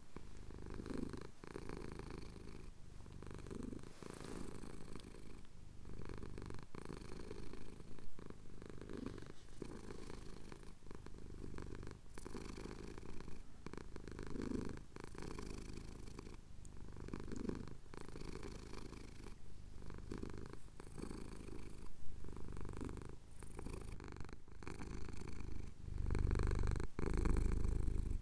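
Domestic cat purring close to the microphone while having its chin scratched, the purr swelling and easing with each breath and growing louder near the end.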